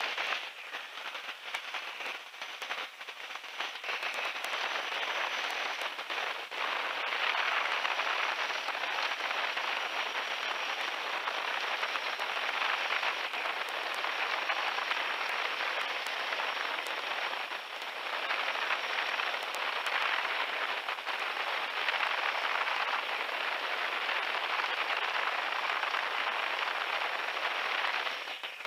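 Wind rushing past the microphone in an open-cockpit biplane in flight: a steady hiss with light crackling. It comes in abruptly and cuts off near the end.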